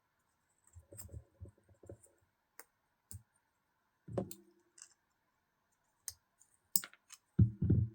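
Scattered light clicks and taps of tiny screws and small knife parts being handled during reassembly of a folding knife, with a louder dull knock near the end.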